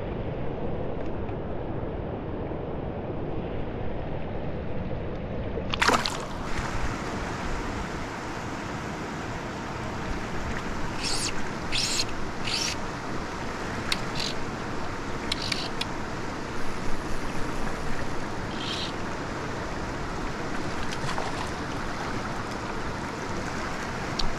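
Steady rush of flowing water in a mountain trout stream, with a few short, sharp ticks or splashes about halfway through.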